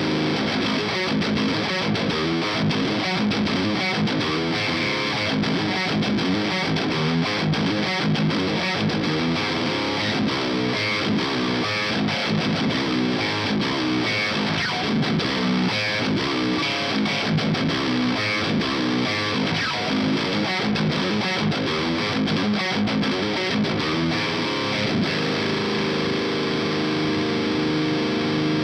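High-gain distorted seven-string electric guitar tuned to drop G sharp, playing a tight, percussive stop-start riff through a modded Marshall JCM 900 SL-X amp pushed by a Fortin Blade boost into a miked 4x12 cab. About 25 seconds in, a chord is left to ring out.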